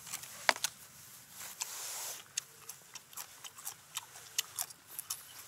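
Quiet clicks and crinkles of a plastic clamshell herb pack being opened and fresh coriander sprigs pulled out, with a short rustle about two seconds in. Scattered small ticks follow as a coriander stem is nibbled.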